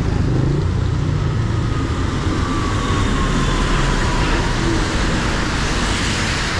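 Road traffic on a rain-wet street: engines rumbling and tyres hissing on wet pavement, with a faint whine falling slowly in pitch as a vehicle passes and the tyre hiss swelling near the end.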